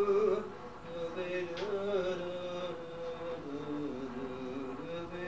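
A voice humming the song's melody wordlessly between sung verses, in long held notes that move up and down in steps.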